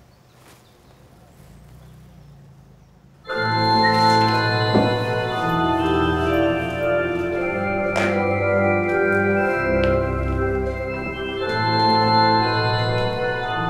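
Quiet room tone, then about three seconds in an organ comes in suddenly, playing full, sustained chords that change every second or so.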